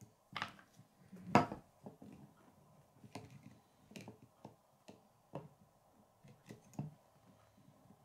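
Irregular sharp clicks and knocks of plastic K'nex pieces as a hand presses on the model's frame and adjusts a wheel on a wooden table, the loudest knock about a second and a half in.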